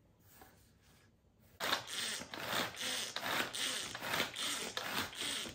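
Hand pull-cord food chopper being pulled over and over, each pull a quick zipping whir of the cord and spinning blades chopping broccoli, about two to three pulls a second, starting about a second and a half in.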